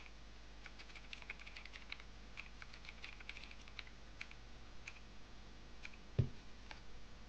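Computer keyboard typing: faint, irregular keystroke clicks as a username and password are entered, with one duller thump about six seconds in.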